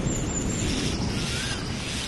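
Rumble of thunder dying away under steady rain in a tropical rainforest storm. Birds call through it: high thin notes near the start and a short rising-and-falling whistle about one and a half seconds in.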